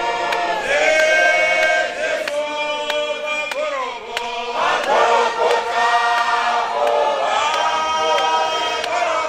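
Church congregation of many voices singing a hymn together in long held notes.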